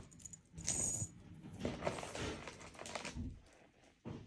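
Light metal chain necklace clinking and jingling as it is handled, with a short bright metallic ring about a second in.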